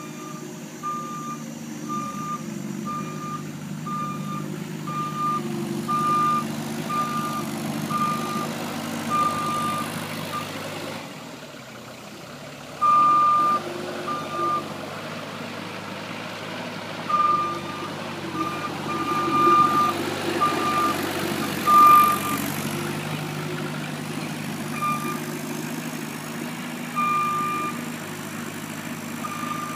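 Backup alarm on a delivery vehicle beeping over its running engine. The beeps come about once a second for the first ten seconds, then stop and start irregularly, with louder stretches around the middle and two-thirds of the way through.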